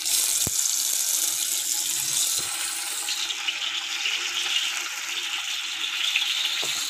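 Pieces of fish sizzling in hot oil in a frying pan, a steady crackling hiss that starts suddenly as the first piece is laid in.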